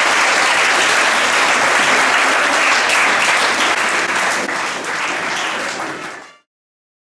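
A crowd applauding, dense steady clapping that thins slightly and then cuts off abruptly about six seconds in.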